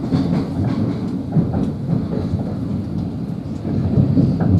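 Thameslink Class 700 electric train heard from inside the carriage while running through the tunnel: a steady rumble of wheels on rails with irregular clatter and knocks.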